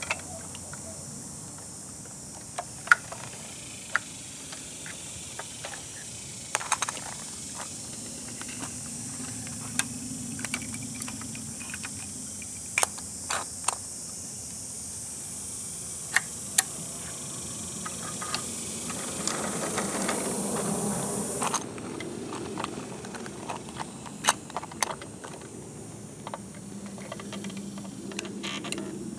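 Scattered sharp clicks and clacks of a model garbage truck and its toy cans being worked by hand on concrete. They sound over a steady high hiss that cuts off suddenly about three-quarters of the way through.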